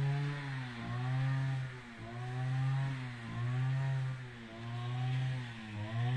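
Two-stroke brush cutter engine running while cutting brush, its revs rising and falling in pitch about five times, roughly once every second and a quarter.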